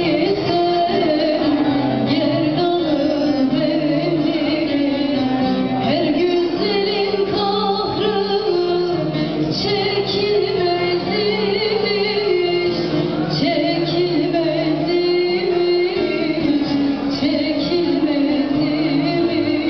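Live music: a woman singing, accompanied by a plucked long-necked lute (bağlama) and keyboard playing held bass notes.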